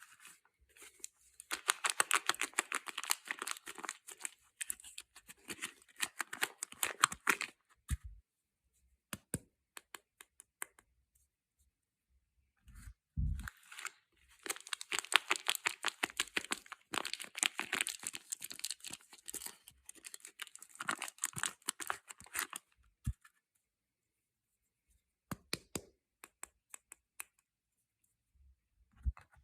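Soap packaging being torn open and crinkled by hand: two long stretches of dense crackling and tearing, with scattered clicks and a low thump between them.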